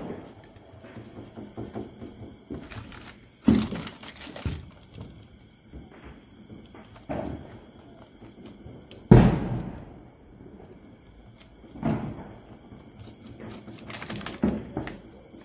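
Crickets chirring steadily and high-pitched, with thumps and bangs every few seconds; the loudest, about nine seconds in, trails off over about a second.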